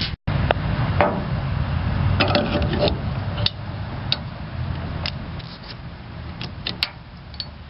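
Light clicks and knocks of hardware being handled, with a cluster about two seconds in and scattered single ones after, over a steady low rumble that fades toward the end.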